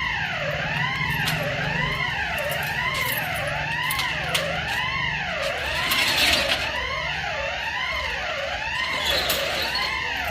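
Bank security alarm siren sounding continuously: an electronic wail that sweeps up and down over and over. It is a false alarm from a fault in the old alarm system, which the bank's operations manager blames on dust getting into it.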